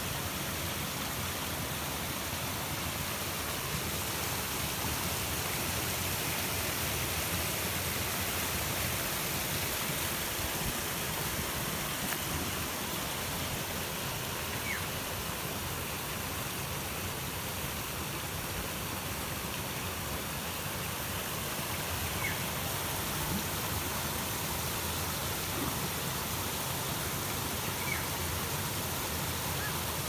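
Creek water rushing over rocks in shallow riffles and small cascades, a steady, even rush.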